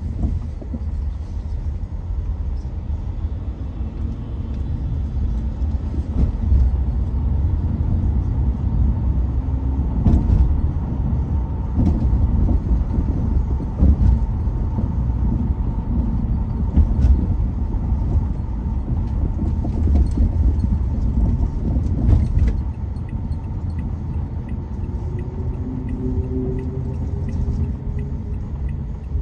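Car interior noise while driving: a steady low rumble of tyres and engine with a few bumps from the road. A faint whine rises slowly near the end.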